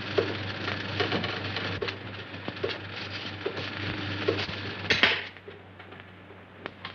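Electric rotary ironer (laundry mangle) running with a steady mechanical clatter and a soft knock about every second. It stops sharply about five seconds in as it is switched off.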